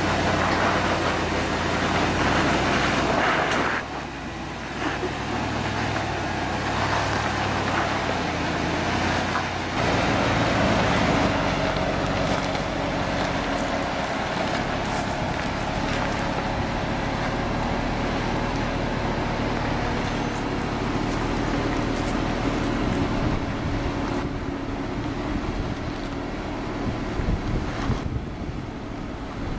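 Hummer H2's V8 engine running steadily under load as the truck crawls over a steep dirt trail. The sound changes abruptly about 4 and 10 seconds in.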